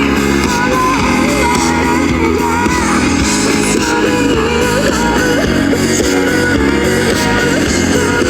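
Live rock band playing, led by guitars, at a steady loud level.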